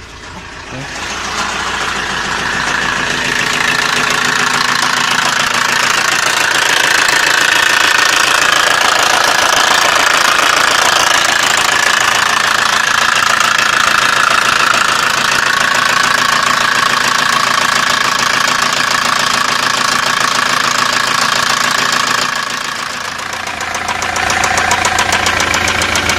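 Hyundai/Kia D4CB 2.5-litre four-cylinder diesel engine running with a rapid, steady knocking. This is the engine knock the owner is trying to diagnose. It grows louder over the first few seconds and eases briefly about 22 seconds in before picking up again.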